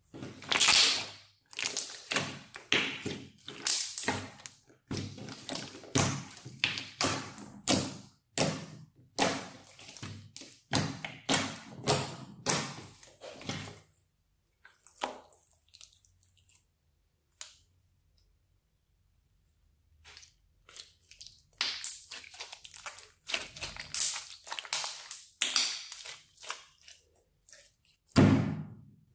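Pink white-glue slime squished, stretched and folded by hand in quick runs of short squishing and popping sounds, freshly activated and no longer sticky. It goes sparse and quiet in the middle, then busy again, and ends with one loud thump as the balled-up slime is pressed flat onto the wooden table.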